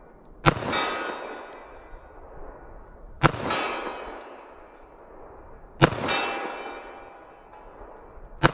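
.45 ACP Glock 41 pistol fired four times, evenly, about two and a half seconds apart. Each shot is followed moments later by a ringing metallic clang that dies away slowly, the sound of the bullet hitting a steel target.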